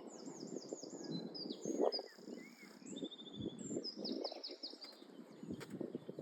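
Songbirds calling, with a quick run of four falling chirps at the start and again about four seconds in, and a short rapid trill near the three-second mark. Under the birdsong runs an irregular low rustling and crunching.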